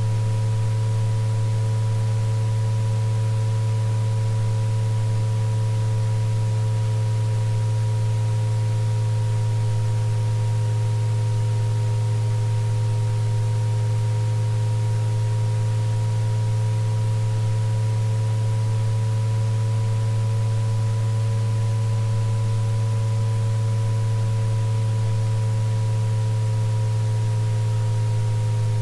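Synthesized tinnitus-relief tone track: a loud, steady low hum with several fainter pure tones layered above it, the upper ones slowly wavering in pitch, over a faint even hiss.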